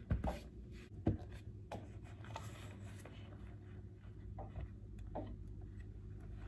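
Hands handling clear plastic orchid pots and settling the plants in them. Two light knocks about a second apart near the start, then soft scratching and rustling.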